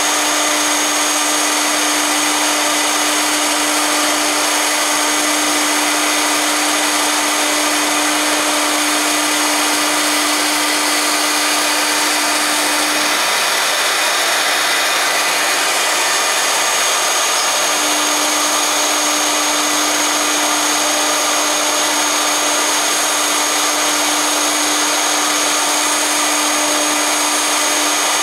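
CNC router's 3.5 kW air-cooled spindle running at speed as its bit cuts acrylic sheet: a steady high whine over a constant hiss of cutting. A lower hum drops out for a few seconds around the middle.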